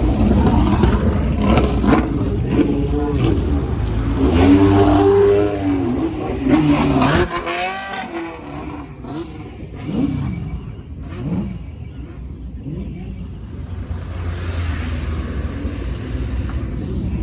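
Classic late-1960s racing car engines running at low speed, blipped and revved hard several times in the first seven seconds, then more cars going by, each engine note rising and falling as it passes.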